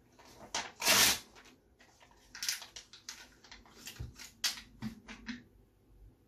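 A printed paper photo bitten and torn with the teeth about a second in, then chewed, with crisp crackling and crinkling strokes of paper.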